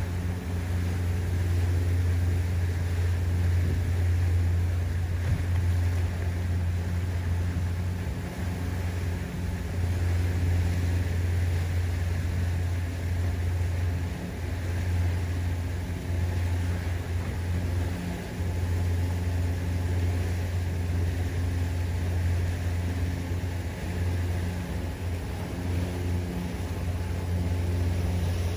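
Boat engine running steadily with a low hum that dips briefly a few times, over a hiss of wind and water.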